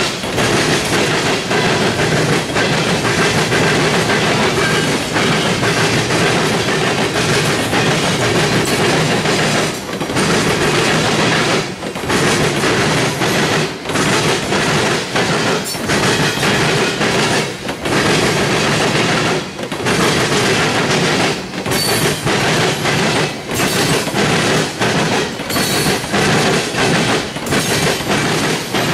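Loaded freight cars of a trash train rolling past: steady loud wheel-on-rail noise with clickety-clack, dipping briefly about every two seconds.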